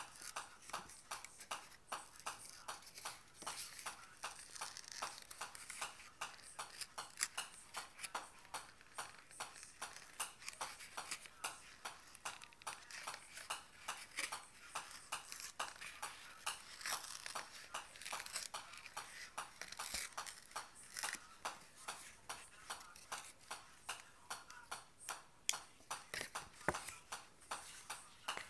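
Golf ball bouncing on the face of a pitching wedge, a light click at each hit, in an even rhythm of about two to three hits a second.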